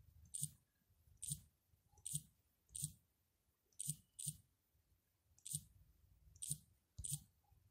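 Faint key-press clicks from a tablet's on-screen keyboard as a password is typed: about nine short, separate clicks at an uneven pace.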